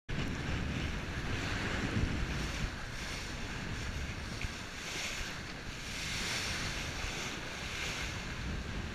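Sea water rushing and splashing along a sailing yacht's hull under sail, with wind buffeting the microphone. The rush of spray swells and eases every few seconds over a steady low wind rumble.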